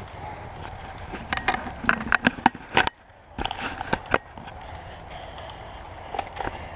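Irregular crackles, scrapes and knocks of someone moving through dry leaf litter against a tree, in two bunches: one from about a second and a half in to just before three seconds, and a shorter one around four seconds in.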